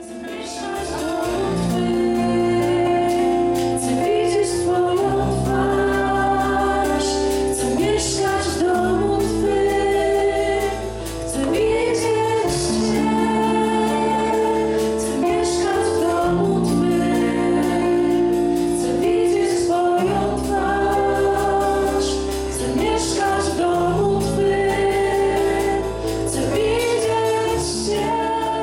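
A worship song: singing over sustained chords and a deep bass line, the chords changing every couple of seconds, with light cymbal strikes now and then. It fades in at the very start.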